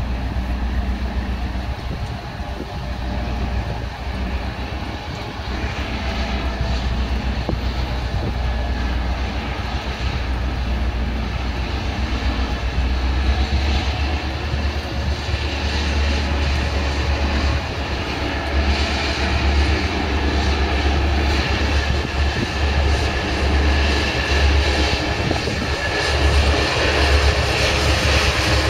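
Two GM-EMD diesel locomotives working in multiple, NOHAB-built CFL MY 1146 and 1807, running under power at the head of a cement train. Their two-stroke engines make a deep, steady drone that grows louder as they approach, with rail and wagon noise rising in the second half.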